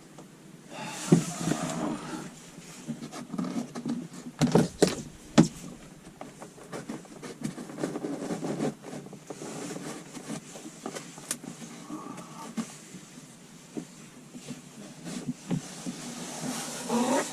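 Handling noise of car interior trim and wiring being pushed into place: bursts of rustling with a few sharp plastic clicks about four and five seconds in.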